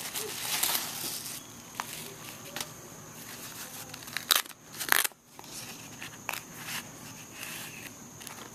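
Packaging being handled and unwrapped: rustling and crinkling for about the first second and a half, then scattered sharp clicks and taps, the loudest two about four and five seconds in.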